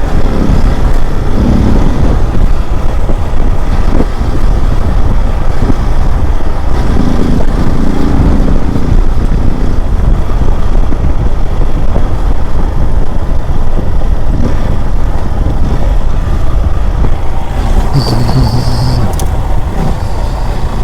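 Hero Xpulse 200 single-cylinder motorcycle engine running as the bike rides a loose-sand trail, under a loud, steady, noisy rumble.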